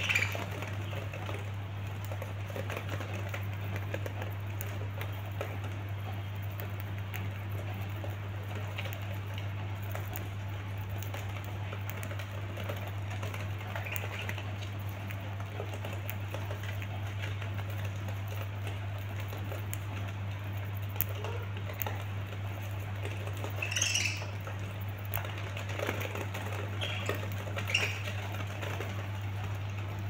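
Budgerigars pecking and nibbling at fresh greens, a continuous patter of small clicks and rustles, with a few short chirps about three-quarters of the way through. A steady low hum runs underneath.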